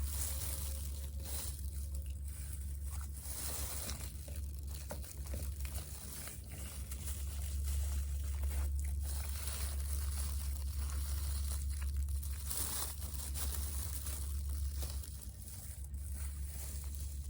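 Close-up eating of crispy fried food: crunchy bites, tearing of the crust and wet chewing, repeated over and over, over a steady low hum.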